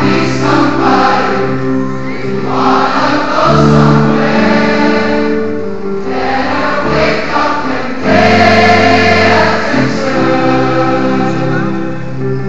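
Large choir singing a slow song in long held chords, in a big gymnasium.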